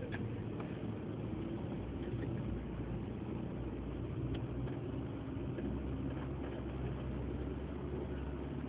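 Isuzu D-Max 4x4 pickup's engine running steadily at low speed along a dirt off-road trail, heard from inside the cabin as a low, even hum with a few light knocks.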